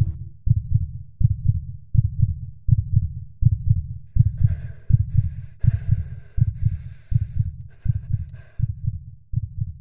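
Heartbeat sound effect: a steady train of low, dull thumps, a little under one and a half beats a second.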